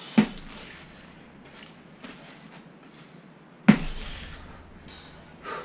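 Feet landing hard on rubber floor mats after jumping donkey kicks: two heavy thuds about three and a half seconds apart, the second the louder.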